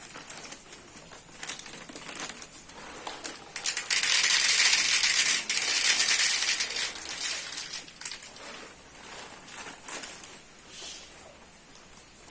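Rain with scattered crackling drips, and a loud high hiss that starts suddenly about four seconds in and fades away after about three seconds.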